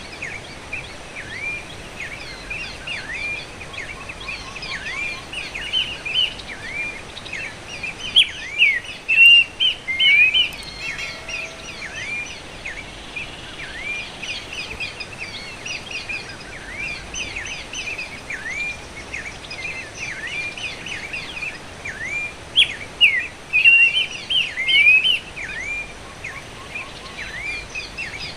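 Pelanduk semak babbler calling: a fast, unbroken series of short swooping notes that dip and rise again, growing louder in two clusters about eight and twenty-two seconds in. A steady hiss runs underneath.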